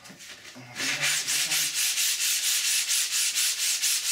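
A 3D-printed ABS mould half being rubbed back and forth on sandpaper on a flat sanding board, starting about a second in. It is a steady rhythmic scraping hiss of about five strokes a second as the welded seam is dressed flat and flush.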